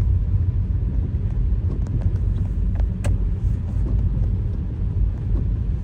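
Steady low rumble of a car driving, heard from inside the cabin, with a faint click about three seconds in.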